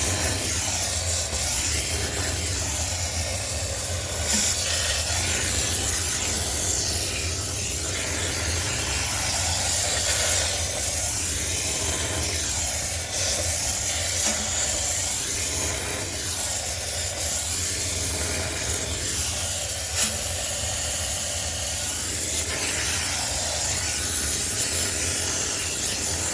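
High-pressure steam cleaner jetting steam onto a sneaker washing machine to sterilise it: a steady loud hiss over a low hum, its tone shifting every few seconds as the nozzle is moved.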